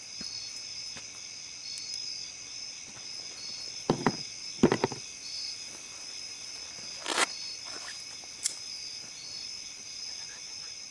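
Night insects, crickets, keeping up a steady high trill with a short chirp repeating about once a second. A few sharp knocks and clatters cut through it, two around four seconds in and the loudest a little after seven seconds.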